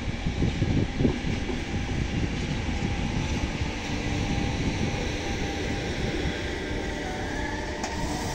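Trenord regional train running along a track beside the platform: a continuous rumble, with gusty low thumps over the first second or so and a faint steady hum later on.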